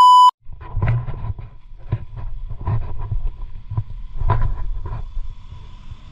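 A loud, steady test-tone beep over colour bars cuts off just after the start. Then an ATV engine runs as a low rumble, with irregular knocks and jolts from riding over a rough dirt track.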